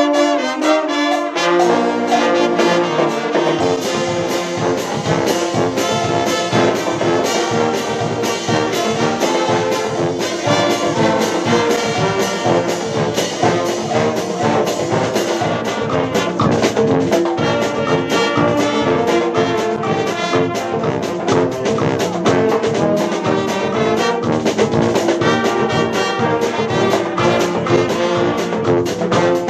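A dweilorkest (Dutch brass street band) playing live: trumpets, trombones and saxophones over snare drums, a bass drum and a sousaphone, with a steady beat. The deep bass part comes in about three seconds in.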